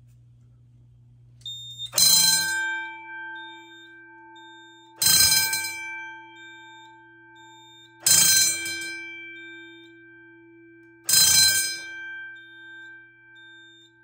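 Fire alarm notification appliance sounding the first-stage alert of an EST QuickStart system: a single bell-like strike about once every three seconds, the 20-beats-per-minute march-time signal, each strike ringing on and fading before the next. A low steady hum comes before the first strike, about two seconds in.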